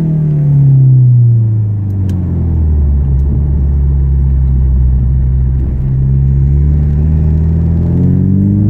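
Ford Mustang EcoBoost's turbocharged 2.3-litre four-cylinder through an MBRP race cat-back exhaust in track mode, revved in neutral and heard from inside the cabin with the window down. The revs fall back over the first few seconds to a low, steady drone, then climb again near the end.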